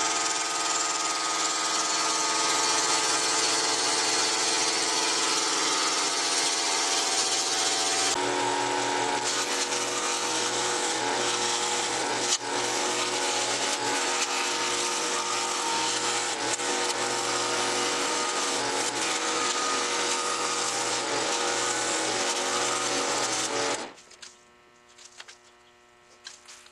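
Small benchtop wood lathe running while a hand-held turning tool cuts the spinning wooden screwdriver handle: a steady scraping cut over the machine's steady hum. The sound stops abruptly near the end.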